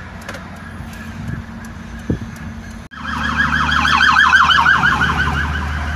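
Low engine and road hum inside a moving car. About three seconds in, the sound breaks off abruptly, and a loud electronic siren takes over, warbling rapidly up and down several times a second over the hum.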